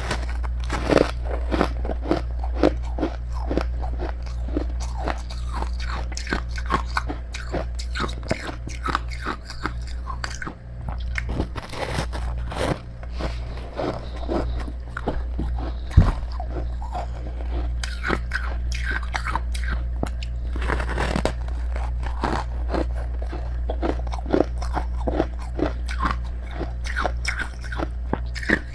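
Close-up biting and chewing of crunchy freezer frost (snow ice): dense, irregular crunches throughout, with one sharp, loud crunch about sixteen seconds in, over a steady low hum.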